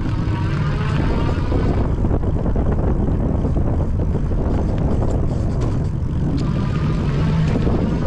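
MeeBike Gallop fat-tire electric bike on the move: steady rumble of the Kenda fat tyres rolling on pavement, with wind on the microphone. A faint whine rises and falls in pitch near the start and again near the end.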